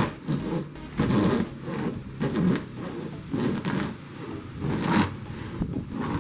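Scissors cutting through a double-walled cardboard box, a rough crunching cut repeated about once a second.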